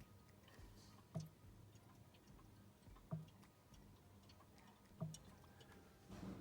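A fermenter's airlock bubbling, one soft blip about every two seconds, three times: the sign of active fermentation a few hours after the yeast was pitched.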